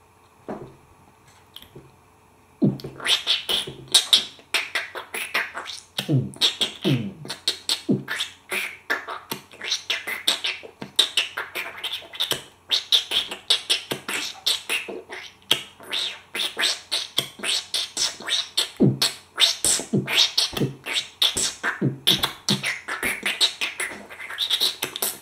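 Beatboxing: after a short pause, a fast run of crisp non-exhaling hi-hats made wet and gritty with spit, with scratch-like chirps from the tongue sliding along the roof of the mouth, imitating turntable scratching. Occasional deeper beats are mixed in.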